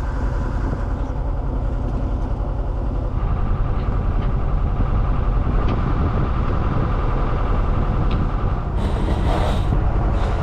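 Sailboat's inboard engine running steadily under way, a low hum. A brief hiss near the end.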